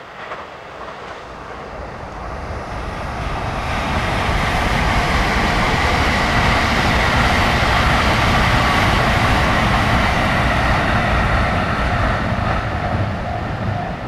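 A JR West limited express electric train passing at speed. Its rumble and a steady whine grow over the first few seconds, stay loud as the cars go by, then ease off near the end.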